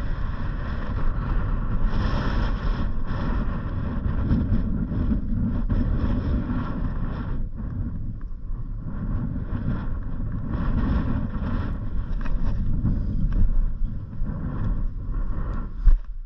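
A vehicle driving on a road: steady engine and road rumble, with wind buffeting the microphone. There is a short knock near the end.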